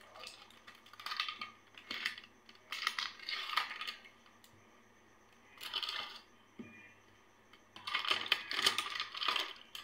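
Clear plastic shrink seals on sauce bottle caps crinkling and tearing as the bottles are opened, in several short bursts with quiet gaps between, the longest near the end.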